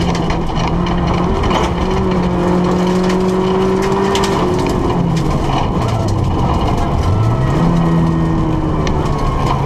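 Rally car's engine pulling at high revs, heard from inside the cabin: the revs hold, fall away about five seconds in, climb again and drop once more near the end as the driver works the throttle and gears. Sharp ticks of gravel are thrown against the car throughout.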